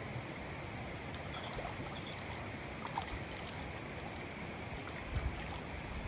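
Running water, a steady rush, with a few faint high chirps about one to two seconds in.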